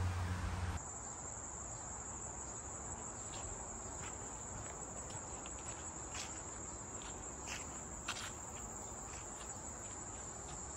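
Crickets singing: a steady high-pitched insect chorus with faint scattered ticks over it. A louder rush of noise with a low hum cuts off under a second in, where the insects take over.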